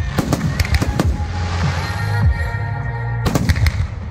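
Aerial firework shells bursting, a rapid string of sharp bangs and booms, with music playing underneath.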